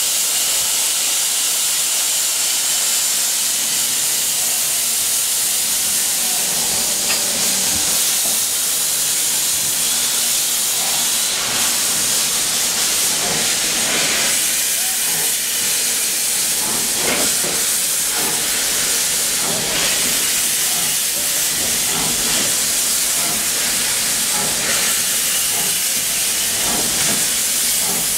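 Steam locomotive pulling away from a station: a loud, steady hiss of steam from the open cylinder drain cocks, with the exhaust beats coming through irregularly from about seven seconds in.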